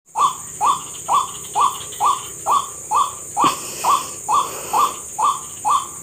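White-breasted waterhen calling, one short rising-then-falling note repeated over and over at about two a second, over a steady high hiss.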